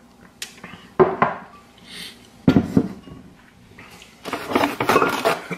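Dishes being handled on a kitchen counter: a glass and a blender jar knocked down and moved. There are sharp knocks about a second in and again past two seconds, then about a second of denser clattering near the end.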